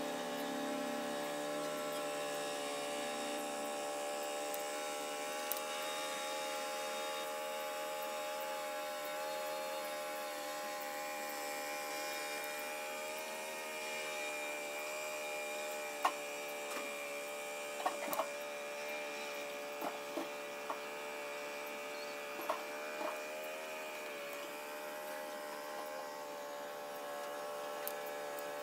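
Steady electrical hum of several layered tones. In the second half come a few light clicks and taps as small parts and wires of an opened heat gun are handled.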